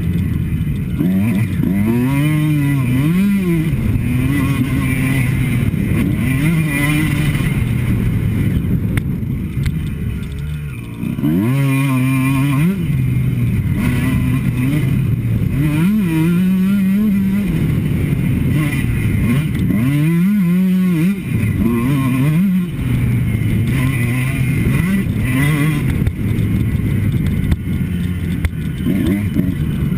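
Two-stroke motocross bike ridden hard around a track, the engine revving up and down over and over with the throttle and gear changes, mixed with wind noise on the helmet-cam. About ten seconds in the engine briefly eases off, then revs sharply again.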